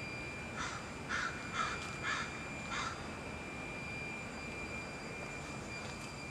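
A crow cawing, about five caws in quick succession during the first three seconds, over a steady background hum.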